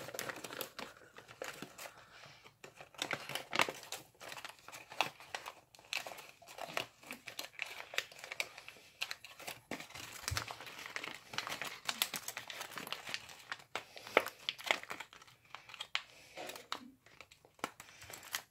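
Sheet of origami paper crinkling and crackling irregularly as fingers open out, squash and press its folded layers into shape.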